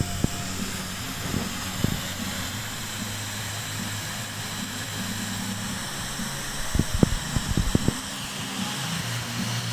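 CNC metal-cutting machine running: a steady hum with a high hiss, and a few sharp clicks about seven to eight seconds in.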